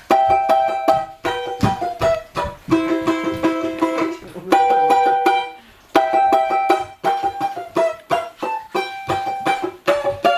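Music with plucked strings playing a quick run of notes and chords, with a brief pause a little past halfway.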